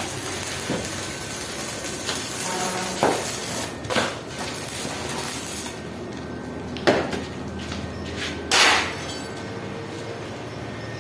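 A few separate metallic clanks and knocks, like steel being struck or handled, the loudest near the end with a short ring, over a steady hiss.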